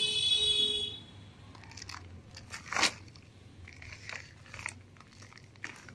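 Dry roots and potting soil crackling and snapping as hands tear apart and crumble a root-bound garlic vine root ball, with scattered sharp snaps, the loudest about three seconds in. At the start a high-pitched tone sounds for about a second.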